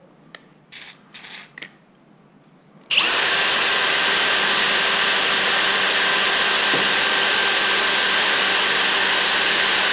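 Cordless drill running at a steady high speed, drilling a small safety-wire hole through a steel bolt head held in a jig. It starts about three seconds in and runs on without a break.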